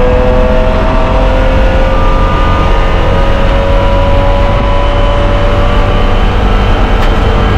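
BMW E30 race car engine at full throttle, its pitch climbing slowly as the car accelerates along a straight, heard from inside the stripped cockpit with loud road and wind noise.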